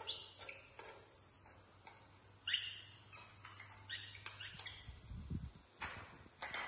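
Baby monkeys squeaking: about ten short, high calls that sweep upward in pitch, coming in clusters, the loudest about two and a half seconds in. A low bump about five seconds in.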